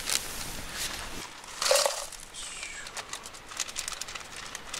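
A charcoal cooking fire crackling under a pot, with many short ticks and clicks in the second half and a brief louder rustle or scrape about two seconds in.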